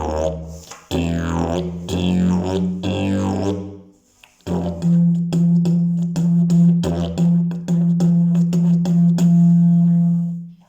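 Hemp-canvas slide didgeridoo playing a low drone, its overtones sweeping up and down as the player shapes the sound. After a short break about four seconds in, a brighter drone comes back with a rhythmic pulse of sharp accents, and it stops suddenly at the very end.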